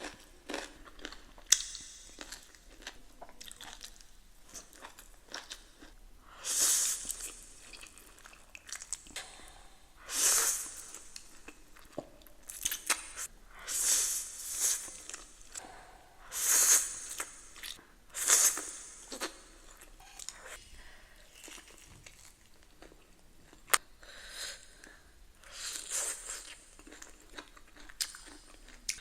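Close-miked eating: bites, crunching and chewing of food in repeated bursts about a second long, with a couple of sharp clicks between them.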